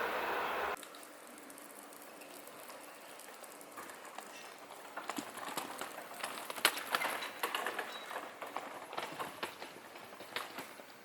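A passing Seibu Ikebukuro Line train's noise cuts off abruptly under a second in, leaving a quiet street. From about four seconds in come scattered light taps and clicks.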